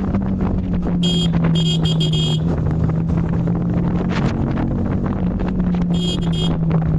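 Yamaha MT-15's single-cylinder engine running at a steady cruise on the road, its note easing slowly lower, with wind noise over the microphone. Short vehicle horn beeps sound about a second in, twice more around two seconds in, and again near the end.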